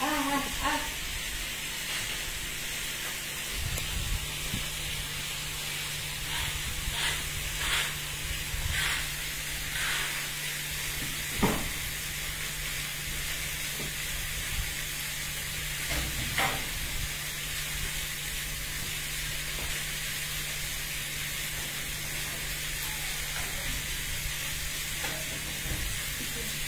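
Steady sizzling of T-bone steak grilling, with a handful of light clicks and knocks, most of them in the first half, and a low steady hum underneath.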